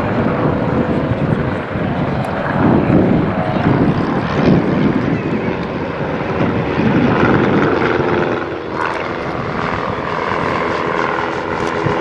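Propeller aircraft engines running as a plane flies a display pass. The sound swells a few seconds in and again past the middle.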